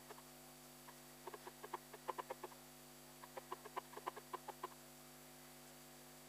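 Copic Ciao marker nib squeaking on paper in two bursts of quick, short strokes, as an area is shaded back and forth.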